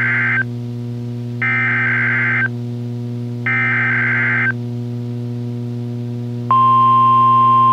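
NOAA Weather Radio test alert: the end of one SAME digital header burst and two more, each a harsh warbling screech about a second long with a second's gap. About six and a half seconds in, the steady single-pitch 1050 Hz warning alarm tone begins and holds, over a low hum. The sequence marks the start of the Required Weekly Test.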